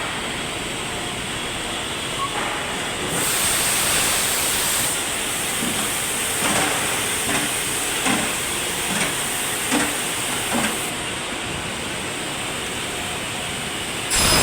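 Steady hiss of machinery at a 7-inch aluminium extrusion press, with a brighter, higher hiss from about three to eleven seconds in.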